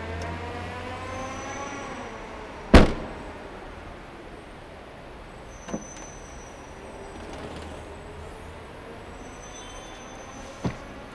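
Toyota Yaris hatchback's tailgate slammed shut once, a loud bang that rings on in the concrete parking garage, followed later by two lighter knocks. In the first couple of seconds a vehicle's engine note rises in the background.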